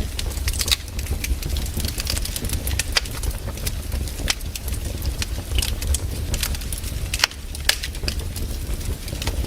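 Campfire burning, its wood crackling and popping in sharp irregular snaps over a steady low rumble.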